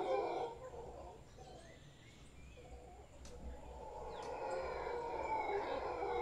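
A troop of mantled howler monkeys howling in deep, rasping choruses. The calling dies down about half a second in, then swells again from about four seconds.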